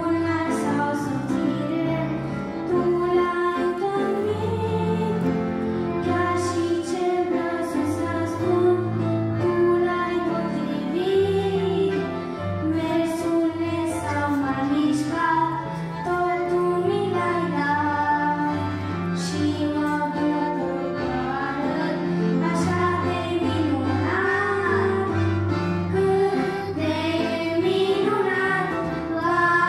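A small group of children singing a hymn-like song together into microphones, over instrumental accompaniment with steady low bass notes.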